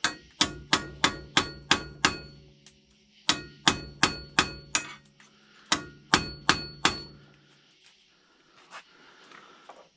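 Hammer blows on ringing steel: three runs of quick strikes, about three a second, struck at a seized ATV ball joint that will not come out.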